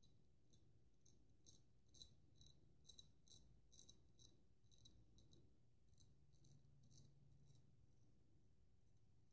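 Gold Dollar 66 straight razor scraping through lathered stubble in short, quick strokes: a faint, crisp scrape a few times a second, with a brief lull midway.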